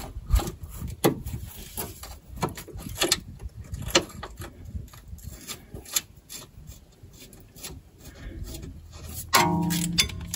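Hand tools clicking and scraping on metal as a nut is threaded onto the bolt of a BMW E46 ride-height sensor bracket and tightened, irregular sharp clicks throughout, with about a second of fast ratchet clicking near the end.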